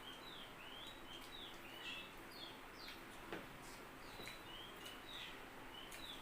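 Faint bird chirping: a string of short, quick notes, some gliding up and some down, with a few soft clicks in between, the clearest about halfway through.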